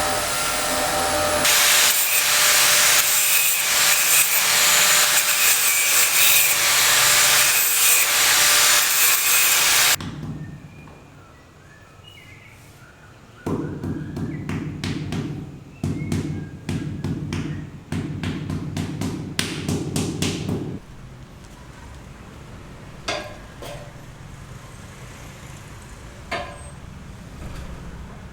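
Construction work: a power tool runs loudly for about ten seconds and cuts off suddenly. After a short lull come several seconds of low, rough, choppy scraping, then a few scattered knocks.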